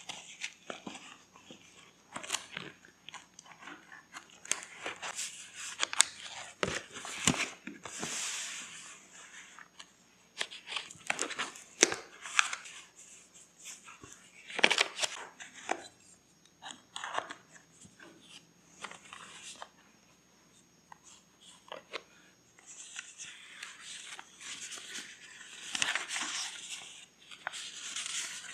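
Paper being handled for journal crafting: irregular rustling and crinkling with many small sharp clicks and taps, in uneven spells with short quiet gaps.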